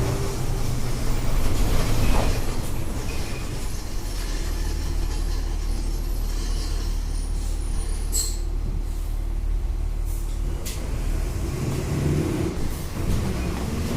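Volkswagen 17.230 EOD bus's diesel engine running on the move, a steady low drone. There is a brief hiss about eight seconds in, and the engine note shifts near the end.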